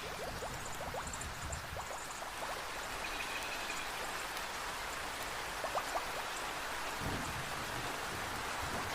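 Steady heavy rain, with individual drops pattering close by over the continuous wash.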